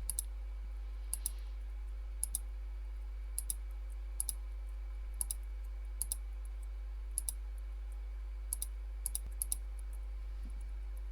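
A button clicked about a dozen times at uneven intervals of roughly a second, most presses making a quick double click, over a steady low electrical hum.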